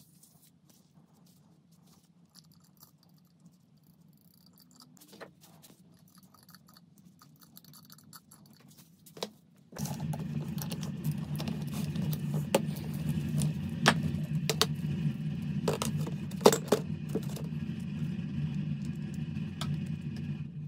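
Small metal clicks and light handling sounds over a faint hum. About ten seconds in, a machine starts suddenly and runs steadily, with frequent metallic clicks and rattles over its low drone.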